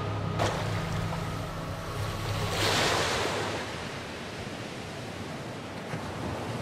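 Sea surf: the wash of waves, with one wave swelling up and washing in about two and a half seconds in, over a low steady hum.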